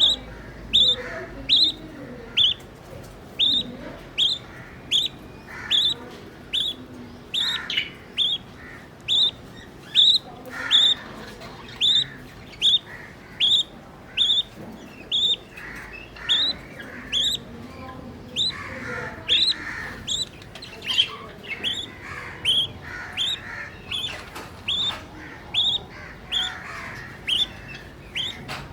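Nine-day-old budgerigar chick cheeping: short, high calls repeated steadily, about three every two seconds, with softer, lower chirps underneath.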